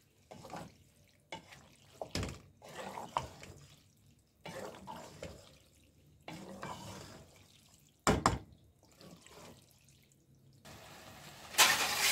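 A spoon stirring sauce-coated macaroni in a metal pot, in uneven strokes every second or two. The spoon knocks sharply against the pot about two seconds in and twice in quick succession about eight seconds in, and there is a louder burst of noise near the end.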